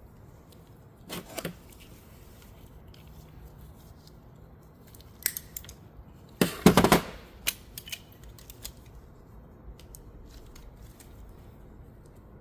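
Short clacks and knocks of transmission parts and tools being handled during reassembly of a manual gearbox: a couple just over a second in, a loud cluster about six and a half seconds in, and a few light clicks after it.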